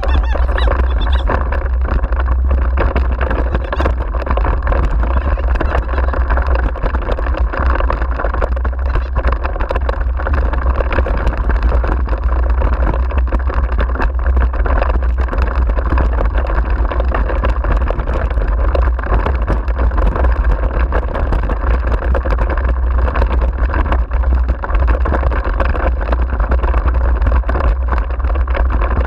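Wind buffeting the microphone together with the wheels of a dog-drawn rig rolling over a rough grass-and-dirt forest track: a steady rushing rumble with many small knocks and rattles from the rig jolting over the ground.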